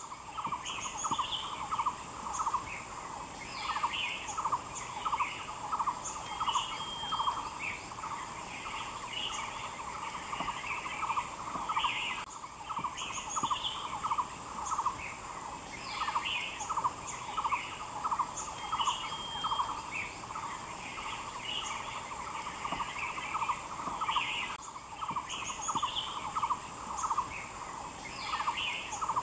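Forest ambience of birds chirping and calling over a steady high-pitched insect drone, with a fast pulsing call running throughout. The same pattern repeats about every twelve and a half seconds, as a looped ambience recording does.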